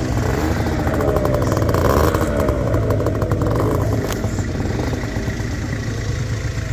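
Motor scooter engine picking up revs as the scooter pulls away, then running steadily while it rides, with a rapid clatter for a couple of seconds.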